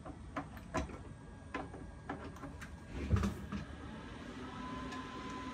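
Clicks and knocks of power cords being plugged into a Bitmain Antminer L7 ASIC miner, with a heavier thud about three seconds in. About four seconds in, a steady whine and low hum start as the miner powers up, still quiet at start-up.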